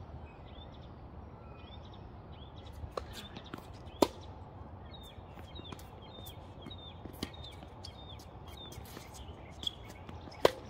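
Tennis ball hit back and forth in a rally: two sharp, loud racket strikes about four seconds in and near the end, with fainter pops of distant hits and ball bounces between. Birds chirp over and over in the background.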